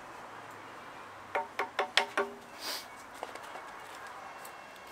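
Five quick hammer strikes on metal within about a second, each with a short ringing tone, followed by a brief scrape.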